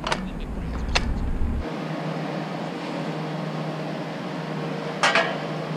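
Two sharp metal clicks as a bicycle is handled at a steel bike rack, then a steady hum of a large store's interior with a brief clatter about five seconds in.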